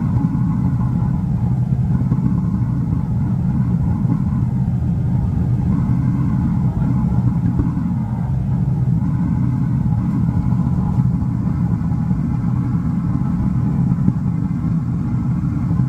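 Reverberatory tilt furnace firing, its air blower and burner making a loud, steady low rumble that holds even throughout.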